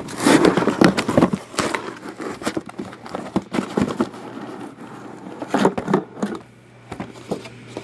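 Shrink-wrapped cardboard hobby boxes being lifted out of a cardboard shipping case and stacked: irregular cardboard scrapes and knocks with crinkling of the plastic wrap.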